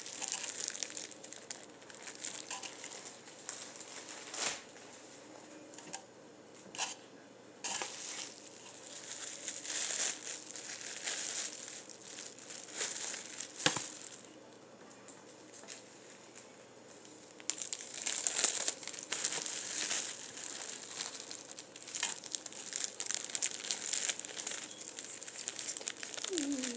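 Clear plastic wrap crinkling in irregular bursts as popcorn balls are wrapped in it by hand, with a single sharp click about halfway through.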